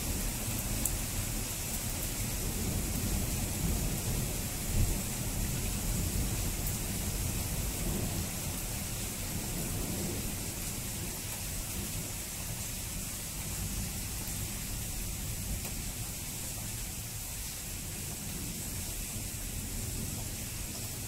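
Steady heavy rain falling, with a continuous low rumble of thunder underneath.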